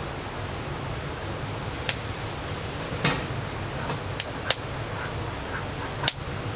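Wood fire crackling under a cooking pot, with five sharp pops, the loudest about six seconds in, over a steady hiss of rain.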